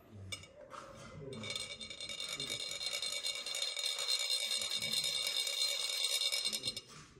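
Chak-pur, the long metal sand-pouring funnel used for Tibetan sand mandalas, rasped with a rod so the coloured sand trickles out. It makes a fast, ringing, high-pitched rattle that sets in about a second in and stops shortly before the end.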